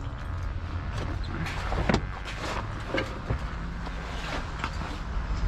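Scattered knocks and clanks of junk and scrap being handled, over the steady low hum of a running vehicle engine.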